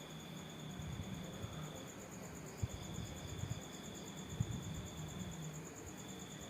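Insects chirping steadily: a fast, evenly pulsed high trill with a lower steady tone that breaks off twice and returns. There are soft low thumps about two and a half and four and a half seconds in.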